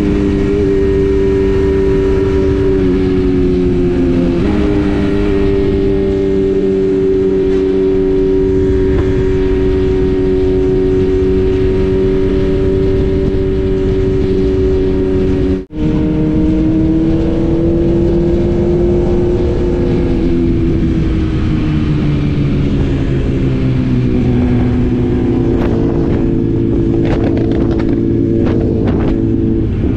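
BMW S1000RR's inline-four engine running at a steady cruise with wind rushing over the bike. Its note drops in pitch over a few seconds in the second half as the bike slows. The sound cuts out for an instant about halfway through.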